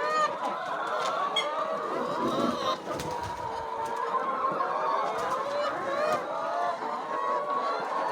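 A flock of chickens calling, many short calls overlapping without a break.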